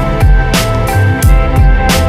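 Background music with a steady beat: bass, drums and sustained pitched notes.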